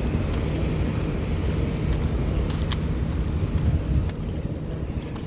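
Motor vehicle engine running close by, a steady low rumble that eases off near the end, with one brief sharp click partway through.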